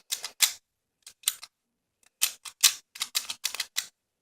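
Master Lock Speed Dial directional combination lock clicking as its dial is pushed in one direction after another: a run of short sharp clicks, with a pause of about half a second partway through.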